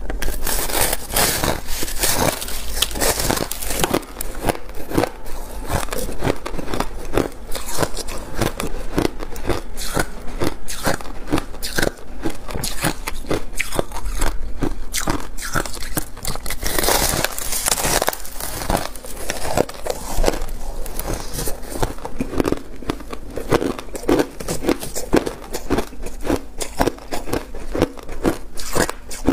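Biting and chewing a lump of packed crushed ice: a dense, continuous run of crisp crunches and crackles.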